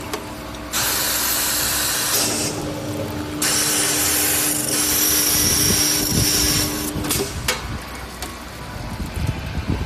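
Vitrex 022 glass drilling machine at work: a steady motor hum under a loud hissing, grinding noise of the bit cutting, which starts and stops in stretches. It dies down to a rougher, quieter rumble with a few low knocks near the end.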